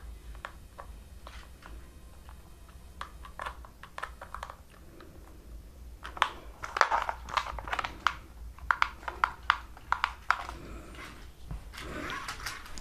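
Small handling noises on a plastic toy remote control: a few light clicks as a screwdriver works at its battery cover, then about six seconds in a dense run of crinkling crackles lasting some four seconds as a thin white wrapper is handled.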